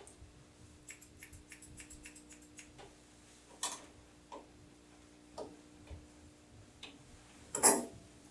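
Grooming shears snipping through dog hair: a quick run of light clicks, several a second, then scattered single snips. A brief louder scrape comes near the end.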